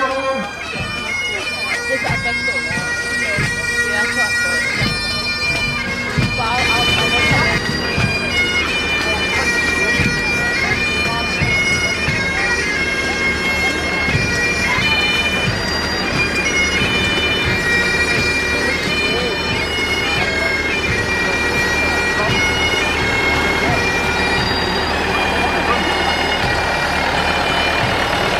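Pipe band playing: bagpipes sound a melody of held, changing notes over their steady drones, with regular drum beats in the first few seconds.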